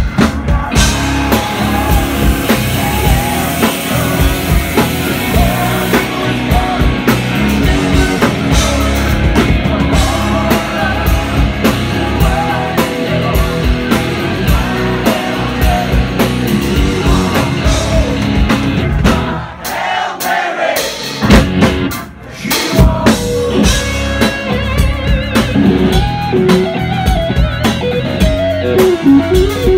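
Live rock band playing: electric guitar, drums and keys with a male lead vocal. The music thins out briefly about two-thirds of the way through, then the band comes back in, with the electric guitar to the fore near the end.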